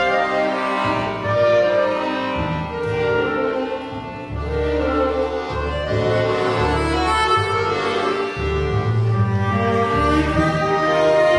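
Slow, mournful elegy played by a solo cello with a small string ensemble of violins and double bass, in sustained bowed notes. A low bass line comes in about two seconds in and moves note by note.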